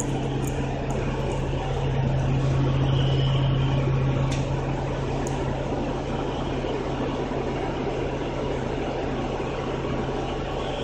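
Orion VII NG city bus heard from inside the passenger cabin: the steady low hum of its engine and drivetrain, swelling for a couple of seconds near the start and then settling, with a faint click about four seconds in.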